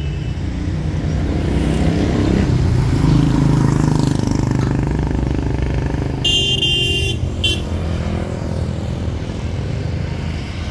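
An engine running steadily with a low rumble. About six seconds in, a vehicle horn sounds, once for about a second and then briefly again.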